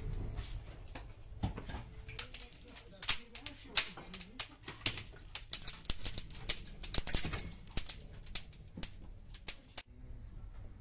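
Dry branches burning in a sunken clay tanoor bread oven, crackling with many sharp, irregular pops.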